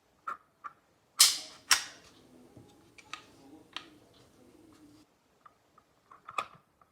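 Glock 17 air pistol fired twice, two sharp cracks about half a second apart, with lighter mechanical clicks of the gun being handled before and after.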